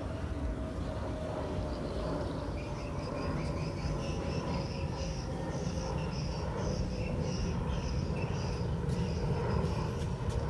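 Outdoor ambience: a steady low rumble with insects chirping in pulses from about two seconds in, and a few sharp clicks near the end.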